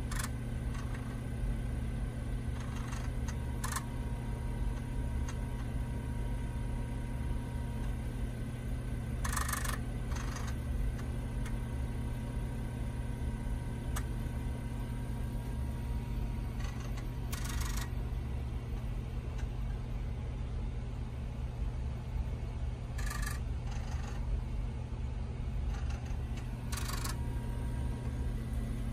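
TRS-80 Model I 5.25-inch floppy disk drives running with a steady motor hum, broken every few seconds by short bursts of head-stepping chatter as the drives read and write during a disk backup.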